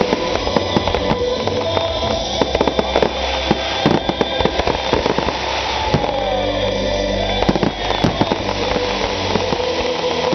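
Fireworks exploding in a dense run of bangs and crackles, with music playing alongside.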